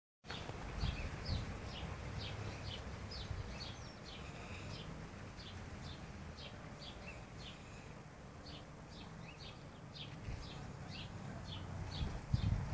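A sleeping pig snoring low and rumbling, with a few stronger snorts near the start. Over it runs a steady series of short, high chirps, about three a second.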